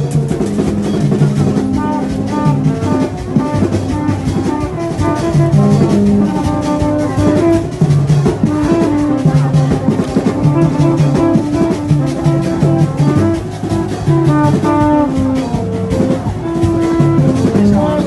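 Upbeat band music with drums keeping a fast, steady beat under a stepping bass line and higher melody notes.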